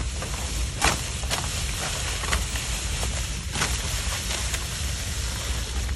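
Hand sickle cutting through green fodder stalks at the base: several sharp crunching cuts, the strongest about a second in and another at about three and a half seconds, over steady rustling of the stalks and a low rumble.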